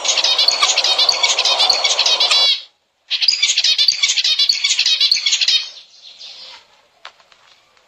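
Zebra finches chirping, a dense run of quick high calls in two bursts of about two and a half seconds each with a short silence between. Only a few faint clicks follow.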